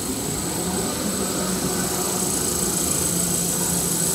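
XY-TQ-A-G glue-lamination embossing kitchen towel paper machine running at speed: a steady mechanical din with a low hum and a constant high-pitched whine.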